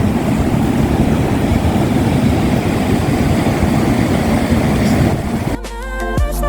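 A steady low rushing noise, which gives way about five and a half seconds in to an R&B song with a beat.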